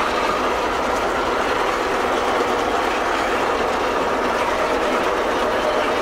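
Steady running noise inside the cab of a Fortschritt E-series self-propelled mower-windrower while it mows, engine and header running together at an even, unchanging level.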